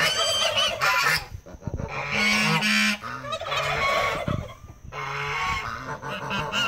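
A flock of white domestic geese honking loudly, many calls overlapping in bouts of about a second with short breaks between them.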